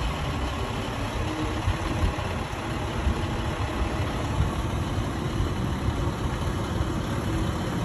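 A semi tractor's diesel engine running steadily at low idle, a constant rumble, as the tractor-trailer creeps backward.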